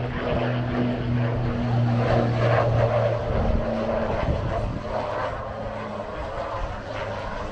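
Boeing CH-47 Chinook's twin T55 turboshaft engines running on the ground with its tandem rotors turning. A steady turbine and rotor noise, with a low hum underneath that drops away about three seconds in.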